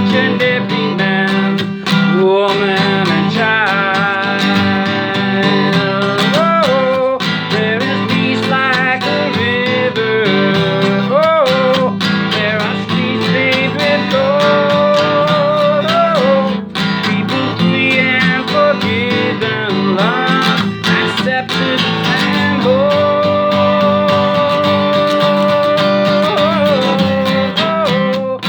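Instrumental break of a worship song: acoustic guitar strumming chords under a gliding, sustained lead melody line.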